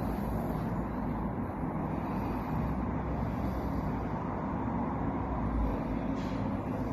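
Steady street traffic noise: a continuous low rumble of vehicle engines with no distinct events.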